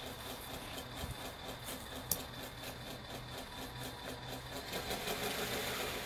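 RC hydraulic bulldozer running, a steady mechanical hum with a fast, even pulse, and one sharp click about two seconds in. It grows a little louder near the end.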